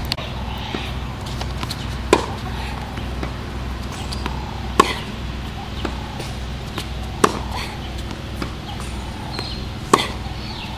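Tennis balls struck by a racket in a baseline rally: four sharp hits about two and a half seconds apart, with fainter ticks between them.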